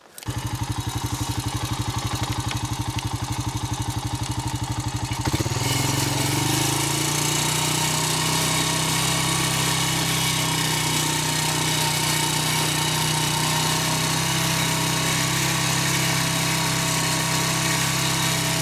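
ATV engine idling with an even pulse, then from about five seconds in running smoothly at a steady higher speed as the quad pulls away.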